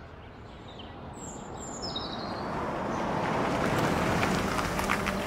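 Outdoor ambience: a few short bird chirps over an even rushing background noise that grows steadily louder through the first four seconds.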